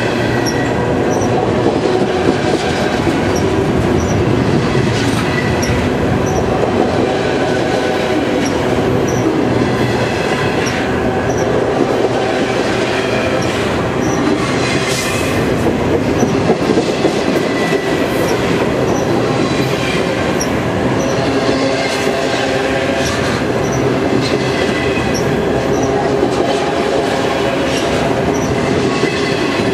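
BNSF freight train of enclosed autorack cars passing at close range, its wheels giving a loud, steady rumble and clatter on the rails, with thin high squealing tones from the wheels coming and going.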